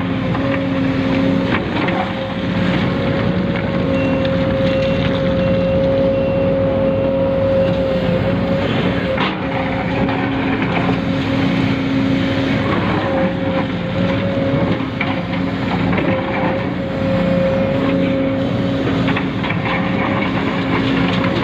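Radio-controlled model machinery running: a steady motor whine with lower tones that cut in and out.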